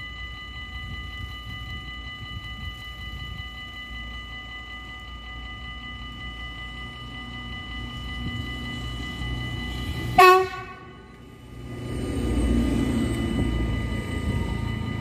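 Level-crossing warning bell ringing steadily at an automatic half-barrier crossing. About ten seconds in, an approaching train gives one short, loud horn blast, and then the low rumble of the passing train rises under the bell.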